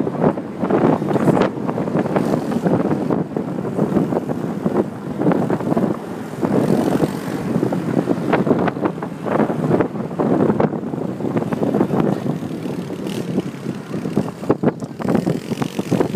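Moving car's road and engine noise, with wind gusting unevenly over the microphone held at the open window.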